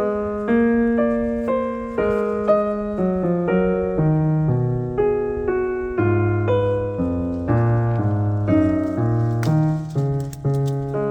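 Gentle solo piano music, slow notes and chords played in sequence.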